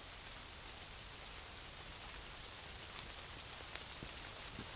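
Steady light rain falling, a soft even patter with scattered single drops tapping; a few sharper drop taps come near the end.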